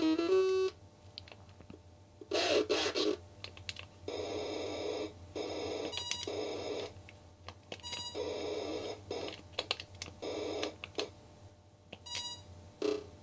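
Commodore 64 game sound effects from the SID sound chip: repeated buzzing bursts, each about half a second to a second long, with a few short electronic beeps in between.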